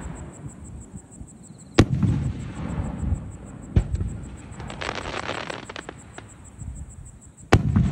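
Aerial firework shells bursting: three sharp bangs, two seconds apart and then after a longer gap, each followed by a low rolling echo. A crackling fizz of glittering stars comes between the second and third bangs.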